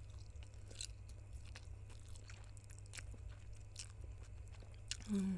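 Close-up mouth sounds of someone eating spicy noodles: scattered wet chewing clicks and smacks. A short low-pitched sound about five seconds in is the loudest moment.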